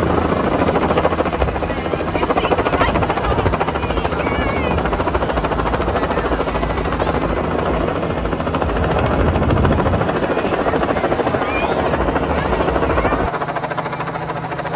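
Helicopter flying low overhead with a loud, steady rotor and engine rumble, with faint voices of a crowd under it. The low rumble drops away abruptly near the end.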